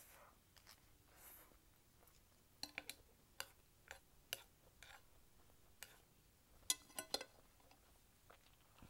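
Faint chewing of a mouthful of instant noodles, with scattered sharp clicks and a quick cluster of louder clicks about seven seconds in.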